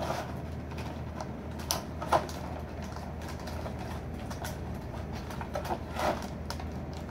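Taped box packaging being cut and handled: a few short scrapes and rustles, spaced seconds apart, over a steady low hum.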